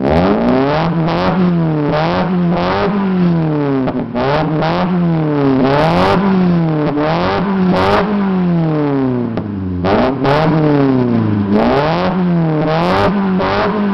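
Honda City Type Z's 1.5-litre engine revved repeatedly through an aftermarket exhaust with a 4-2-1 header and a short J's-style muffler: the pitch climbs and drops again about once a second, a dozen times over.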